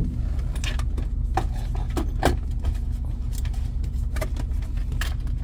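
Vehicle engine idling, heard from inside the cab as a steady low drone. Scattered light clicks and rattles sound over it.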